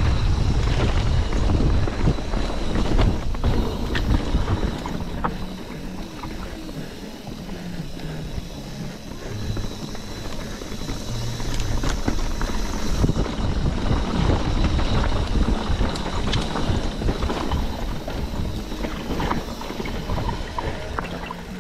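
Wind buffeting the microphone over the rumble and rattle of a mountain bike rolling down a dirt trail, with scattered sharp clicks and knocks from the bike over rough ground.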